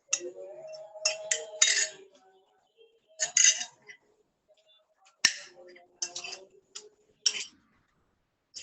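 Dishes and cutlery clinking: about a dozen sharp, irregular clinks, like a spoon striking a bowl or plate.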